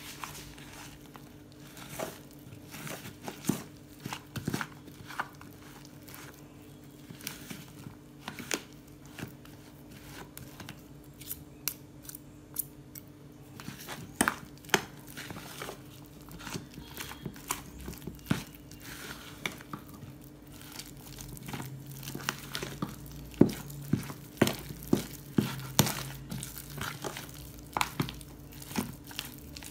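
A fork and spoon stirring thick sweet-potato and rice-flour dough in a plastic bowl: irregular clicks and scrapes against the bowl, coming faster and louder in the last third.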